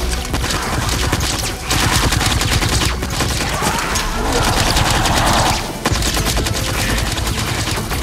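Rapid automatic gunfire from a sci-fi rifle in a dense, continuous stream of shots, louder and noisier from about two seconds in until nearly six seconds.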